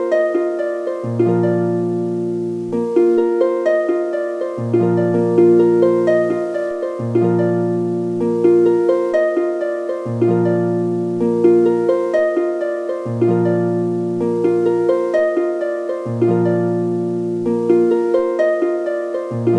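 Background music of plucked harp-like notes over a repeating bass line.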